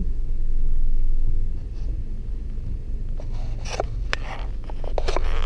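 Low engine and road rumble inside a car's cabin as it slows into a parking space, louder in the first second or so. From about three seconds in comes a run of small clicks and rattles.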